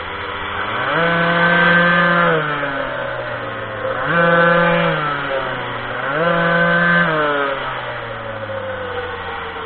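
Minimoto's small two-stroke engine revving up and easing off three times as the throttle is opened and closed, its pitch rising to a high buzz and falling back to a lower drone in between.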